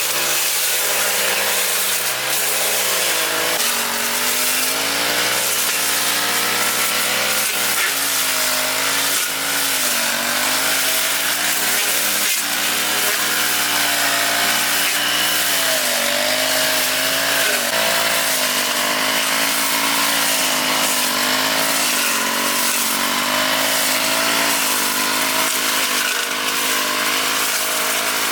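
Small petrol engine of a grass-cutting machine running continuously under load, its pitch wavering up and down as it cuts through the garden growth.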